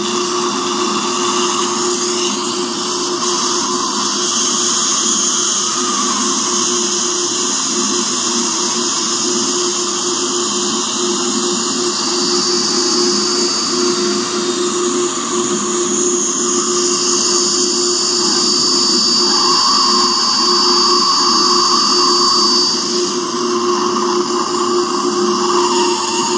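Electric surgical micromotor with a contra-angle handpiece running steadily as its bur cuts bone around an impacted lower third molar.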